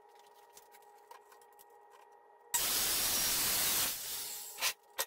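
A short blast of compressed air from an air hose: a steady hiss that starts suddenly a little past halfway, lasts about a second and a half and then tails off, followed by a couple of light clicks.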